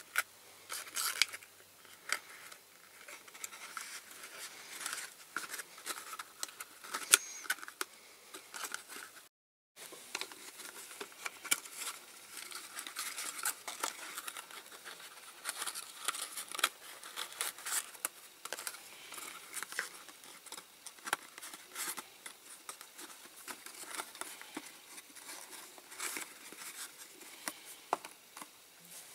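Irregular small clicks, ticks and scraping rustles of hands handling and fitting small diecast model car parts on a workbench, with a brief dead gap about a third of the way through.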